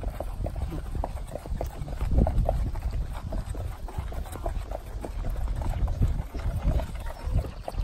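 Hooves of several horses walking on a sandy dirt track: an irregular run of soft clopping steps over a low rumble.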